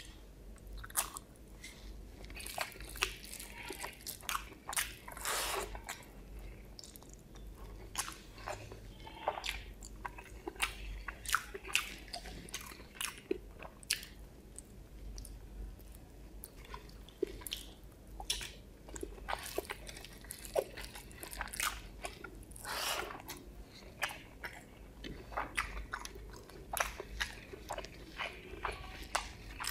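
Close-miked chewing and wet mouth smacks of a person eating boiled egg in curry with rice, with many irregular short sharp smacks.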